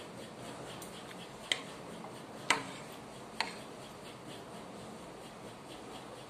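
Metal spoon and fork clinking against ceramic bowls, three sharp clinks about a second apart, the middle one loudest, over a steady low hiss.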